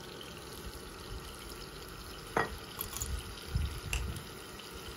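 Steady watery hiss of a pot of zucchini cooking in broth as tomato passata is poured in from a bottle. A sharp clink comes about halfway through, then a few soft knocks.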